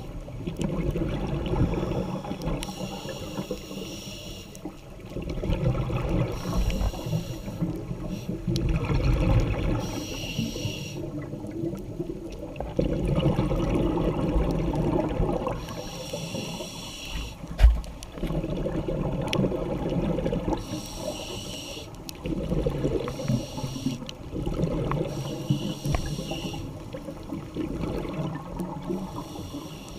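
Scuba diver breathing through a regulator, heard through an underwater camera housing: a hissing inhale every few seconds alternating with bubbling exhales. A single sharp knock a little past halfway.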